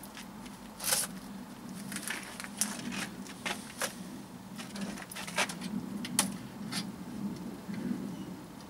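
Scattered light clicks and taps of thin metal being handled: the aluminium flexible chimney duct and the riveted hinged door of a 5-litre beer-keg wood stove, the door swung open near the end.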